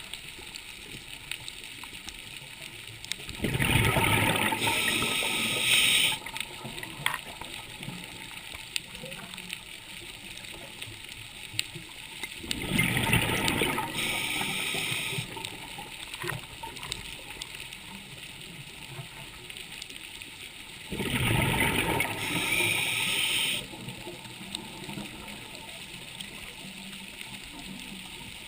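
Scuba diver's regulator underwater: three long bursts of exhaled bubbles about nine seconds apart, with faint crackling between the breaths.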